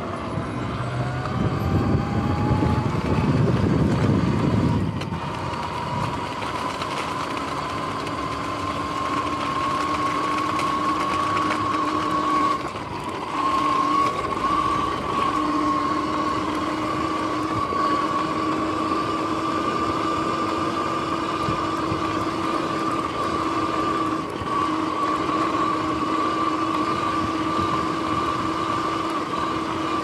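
Sur-Ron X electric dirt bike's motor and drivetrain whining as it gathers speed, the pitch rising over the first few seconds, with a rumble early on. It then holds a steady whine at cruising speed; the jackshaft bearings have just been replaced.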